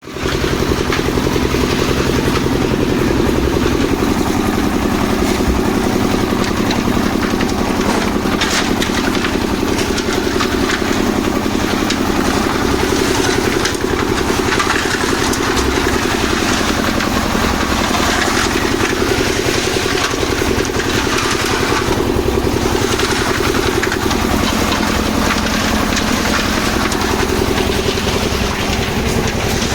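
Concrete mixer's engine running steadily at an even speed, with an occasional clatter over it.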